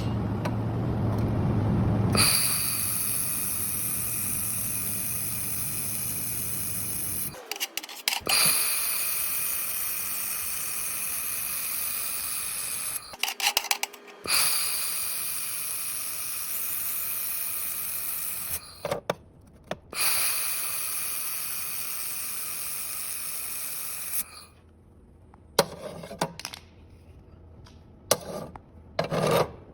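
Portable laser welding machine at work: a steady high hiss with a faint whine runs in stretches of about five seconds and stops briefly between them, as with separate weld passes. A low hum comes before the first stretch, and it ends in a few clicks and knocks.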